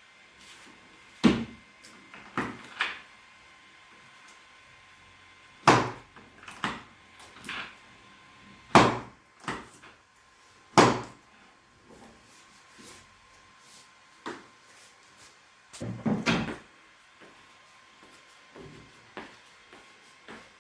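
About a dozen sharp knocks and thumps at irregular spacing, the loudest about a second in and around six, nine, eleven and sixteen seconds in, with a quick double knock near sixteen seconds. They are hands and body bumping against a chiropractic treatment table during manual adjustments.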